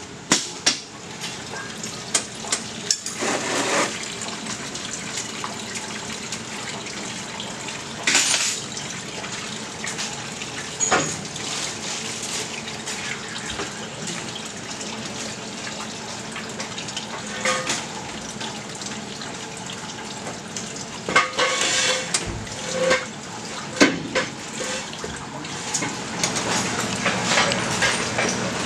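Metal hand tools clinking and knocking against a small-block Chevy engine as a wrench works its front bolts. The scattered sharp knocks sit over a steady hiss.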